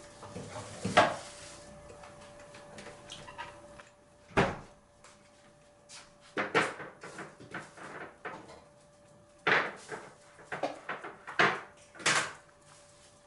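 Metal spoon and metal chopsticks clinking against ceramic plates and the table as they are set down, picked up and used to pick at kimchi: a string of sharp clicks spread out irregularly, the loudest about a second in and a quick cluster near the end.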